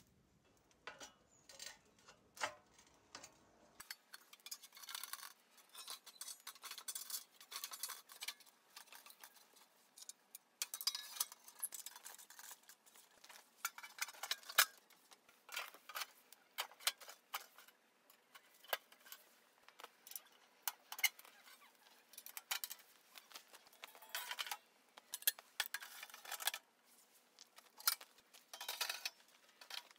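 Irregular metal clinks and knocks as the parts of a handmade sheet-steel camping stove and its pins are handled and fitted together.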